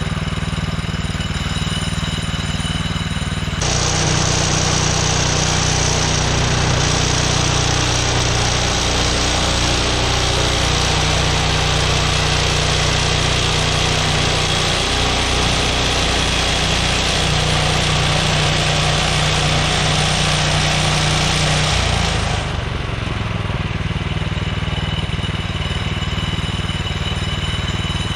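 Woodland Mills HM126 bandsaw mill's engine running steadily, with the band blade cutting through a basswood log from about four seconds in to about 22 seconds in, after which the engine runs on without the cutting noise.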